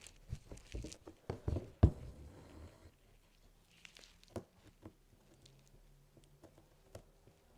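Hand embroidery being worked: a quick run of sharp taps and rustles in the first two seconds, then faint, scattered scratches and ticks as crewel wool is drawn through the fabric.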